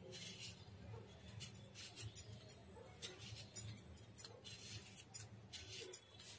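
Vegetable peeler scraping the skin off a raw potato in short, faint strokes, about two a second.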